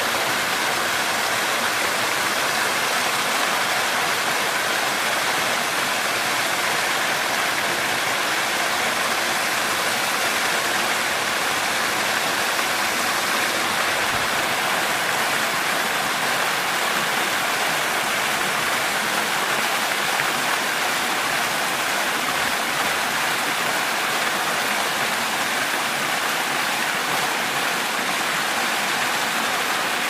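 Tall waterfall: a steady, even rush of falling water.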